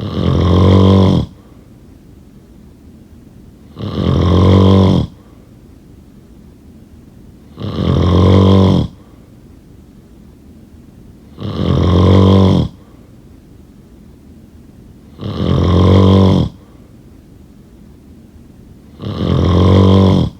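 A person snoring: six loud snores, each a little over a second long, repeating evenly about every four seconds, with faint steady background noise between them.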